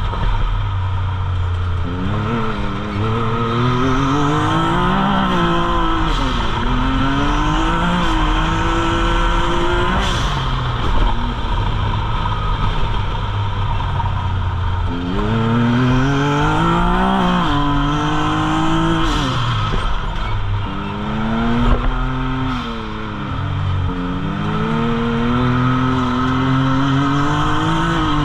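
Can-Am side-by-side's engine heard from inside the cab at racing pace: the revs climb under throttle, drop off, and climb again several times over a steady low drone.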